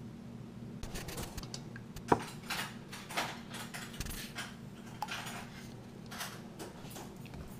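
Cooking oil pouring from a plastic jug into a cast-iron pot, with irregular glugs and crackles of the plastic jug, and one sharp tap about two seconds in.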